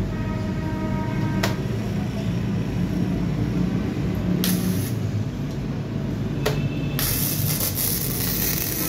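MIG welding arc crackling and hissing as a bead is laid on steel: a short burst about halfway through, then a longer steady run starting near the end.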